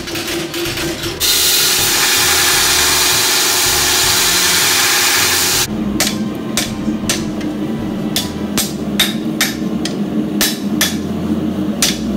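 About a second of quick, even strikes, then a loud steady rushing noise for about four seconds that stops abruptly. After that a blacksmith's hand hammer strikes a red-hot steel sword blade on the anvil in quick runs of blows, about two or three a second.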